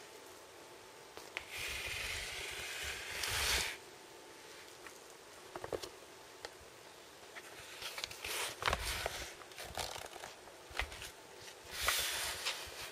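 Handling noise: rustling and scraping, with a few light clicks and knocks. It comes in stretches, from about a second in to nearly four seconds, again around eight to nine seconds, and near the end. The drill is not running.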